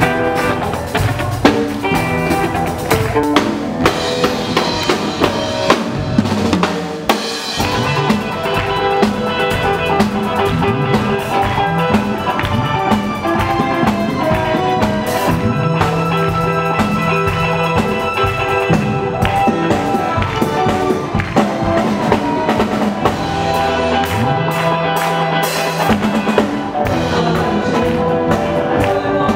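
Live band playing an instrumental passage: electric bass lines, drum kit with snare and bass-drum hits, and keyboards, without vocals.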